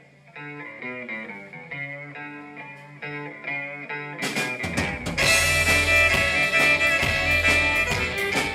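Live band music. A lone guitar picks a melody of single notes, then about four seconds in the full band comes in loudly with drums, bass and guitars.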